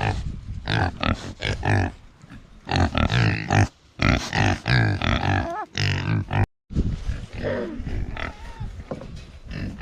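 Pigs grunting in many short grunts in quick succession, with a break in the sound about two-thirds of the way through.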